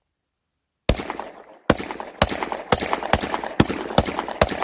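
Panzer EG200 semi-automatic shotgun fired eight times in quick succession, starting about a second in, about two shots a second, each report trailing a short echo. The gun cycles every round of Remington 1 1/4 oz game loads.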